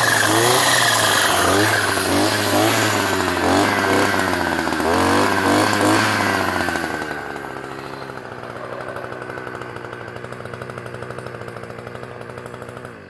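Blue Max 42.7cc two-stroke string trimmer engine running, revved up and down repeatedly with the throttle, then settling to a steady idle about seven seconds in. The engine stops at the very end.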